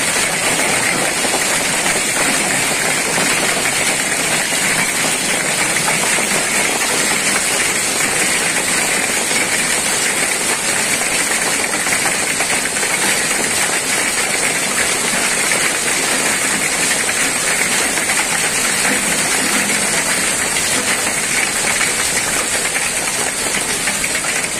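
Hailstorm: hailstones and rain coming down steadily onto pavement, a dense, even hiss with no letup.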